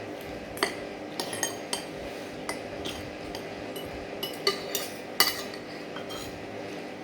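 Metal cutlery clinking against a plate in a dozen or so irregular, sharp taps, over a steady low hum.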